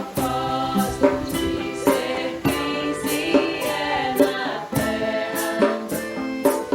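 Background music: choral singing over sustained instrumental chords, with a light percussive beat about twice a second.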